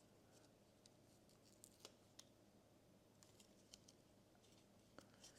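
Faint handling of a badminton racket grip being wrapped and finished: scattered small clicks and light rustling, very quiet.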